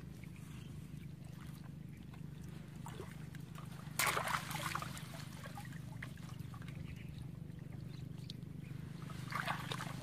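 Shallow water sloshing and splashing as someone wades through a flooded, weedy field, with a louder splash about four seconds in and a smaller one near the end.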